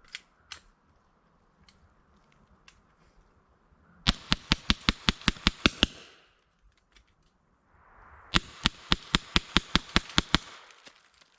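AEA HP SS Plus .25 calibre PCP air pistol fired semi-automatically in two quick strings of about a dozen shots each, about seven shots a second, with a short pause between the strings.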